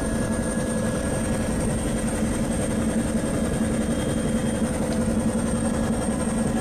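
Helicopter in flight, a steady engine and rotor drone with a constant low hum and no change in pitch.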